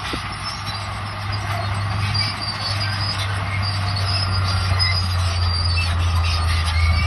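Crawler bulldozer's diesel engine running steadily, with short high squeaks from its tracks.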